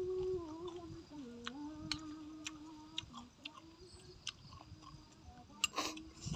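A man chewing a mouthful of roast duck with small wet clicks, humming a long low wavering "mmm" through most of it. Near the end there is a short scrape as chopsticks pick up more food from the metal tray.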